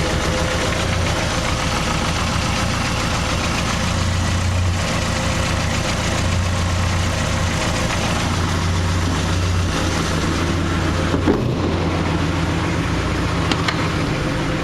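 1976 BMW 2002's four-cylinder engine idling steadily, warmed up and purring smoothly.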